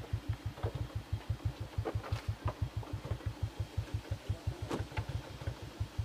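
A small engine running at a steady idle, a low chug of about eight beats a second, with a few sharp clicks over it.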